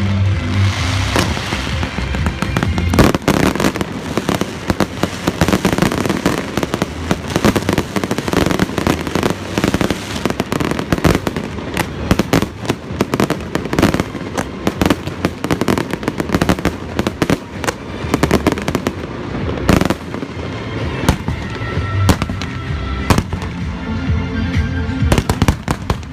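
Fireworks display: a dense, rapid run of aerial shells bursting in quick succession, bangs and crackles overlapping without a break, with music playing underneath.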